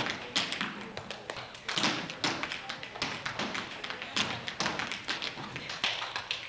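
Tap shoes striking a stage floor in a fast, uneven rhythm of sharp clicks and heavier stamps.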